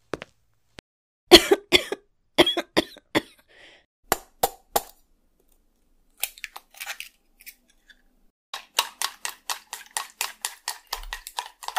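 Light clinks and knocks of small toy metal pots and utensils being handled, first scattered, then a quick even run of taps at about six a second near the end.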